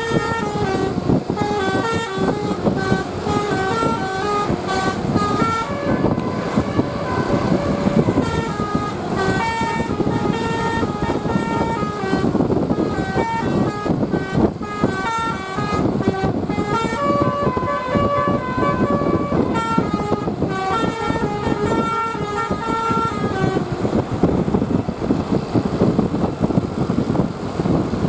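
Bus telolet horn of the Basuri type, the multi-note musical horn of Indonesian buses, playing a quick tune of stepped horn notes over the bus's running engine. The tune stops about four-fifths of the way through, leaving the engine running alone.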